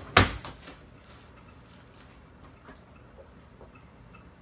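A single sharp knock just after the start, then quiet with a few faint scattered ticks.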